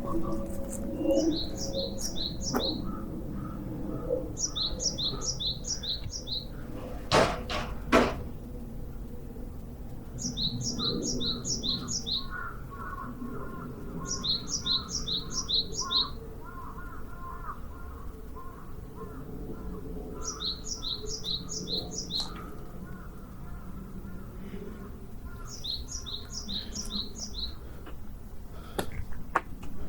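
A small songbird singing a short, quick, high-pitched phrase of paired notes, repeated six times a few seconds apart, with a lower chattering call behind it for a while. Two sharp knocks about seven and eight seconds in are the loudest sounds.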